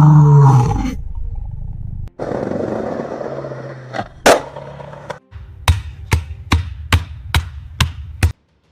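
A run of generated Foley sound effects from short demo clips, one after another. First a low pitched sound lasting about a second, then a steady rushing noise with two sharp hits, then a series of about eight sharp strikes, roughly two or three a second, which stops suddenly near the end.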